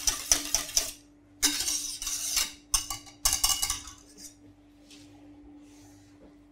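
Wire whisk scraping and clinking rapidly against the inside of a stainless steel saucepan as hot chocolate ice-cream base is whisked, in three bursts that stop about four seconds in. A faint steady hum runs underneath.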